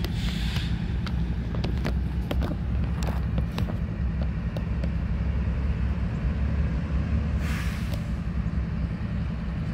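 Steady low rumble of Norfolk Southern diesel locomotives running a short way off, with scattered small clicks and a brief hiss about seven and a half seconds in.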